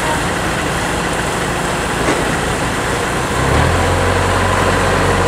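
Kubota DC105X combine harvester's diesel engine running as the machine crawls on its tracks down a bank. About three and a half seconds in, a deeper steady drone sets in.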